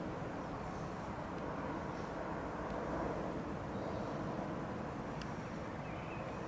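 Airbus A320-232 airliner with IAE V2500 turbofans passing overhead on descent: a steady, even jet rumble.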